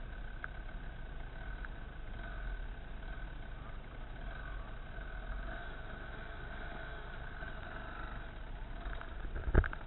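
Enduro dirt bike engine running steadily at low revs, with a few loud knocks about nine and a half seconds in as the bike goes onto a step of logs.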